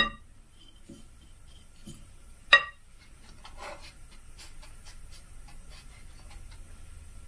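A metal spoon clinks twice against a cut-glass bowl, each strike ringing briefly, the first at the start and the second about two and a half seconds in. Then faint crackling and rustling as a crumbly butter-and-brown-sugar mixture is pressed down by hand into a metal baking pan.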